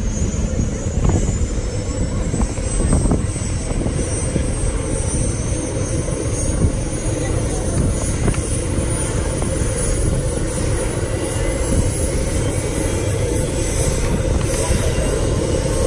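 MD 500-series light turbine helicopter running on the ground with its main rotor turning before lift-off: a steady low engine-and-rotor noise with a thin, high turbine whine above it.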